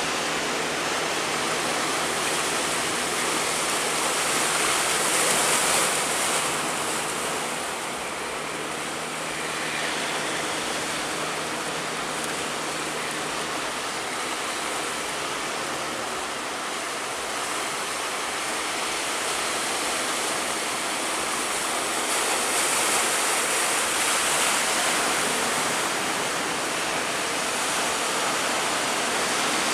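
Big ocean waves surging and breaking at a river mouth: a continuous rushing roar of surf that swells louder twice, about five seconds in and again past twenty seconds.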